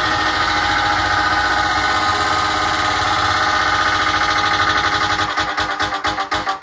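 A loud, steady buzzing tone with many overtones, played through a DJ sound system. About five seconds in it is chopped into rapid, even pulses.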